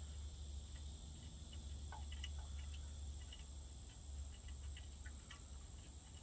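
Faint scattered clicks and light clinks of hands and tools working on a small engine's wiring, over a steady low hum and a steady high whine.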